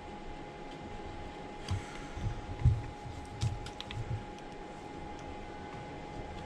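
Soft knocks and a few light clicks of an opening tool and the phone being handled while the iPhone screen is pried up, bunched in the middle, over a faint steady hum.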